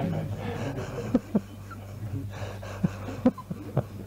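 A steady low electrical hum under the room sound, with faint voice and breath sounds and five short, sharp clicks or knocks, two about a second in and three in the second half.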